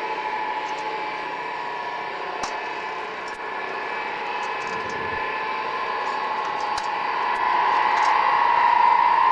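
Ilyushin Il-76's four turbofan engines whining steadily as the freighter taxis and swings round to line up, growing louder in the last couple of seconds as it turns to face the listener.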